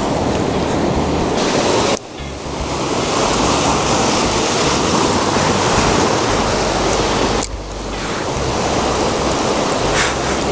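Surf breaking and washing over shoreline rocks, a continuous loud rush of churning water with wind on the microphone. The rush drops away sharply twice and swells back up.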